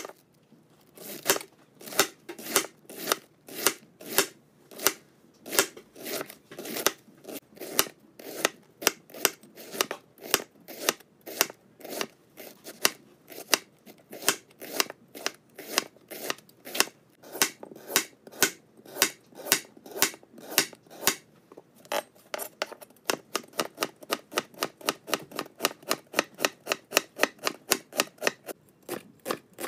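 Chef's knife julienning red cabbage and carrot on a wood-composite cutting board: a steady run of sharp knocks, one per stroke as the blade meets the board. The strokes come about two a second and quicken to about three a second about two-thirds of the way in.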